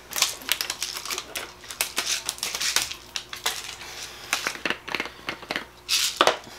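Small laundry scent booster beads poured from a plastic measuring cup into a glass jar: a dense patter of tiny clicks for about three seconds, thinning out after that. A short burst of rattling comes near the end as the bottle of beads is handled.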